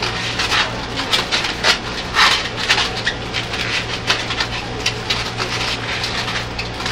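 Latex twisting balloons squeaking and rubbing in quick, irregular strokes as they are twisted and wrapped into a balloon hat, over the steady low hum of a train car.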